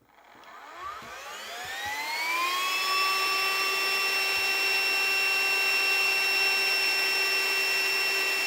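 Cordless handheld vacuum cleaner switched on: its motor winds up in a rising whine over the first two to three seconds, then runs at a steady high whine.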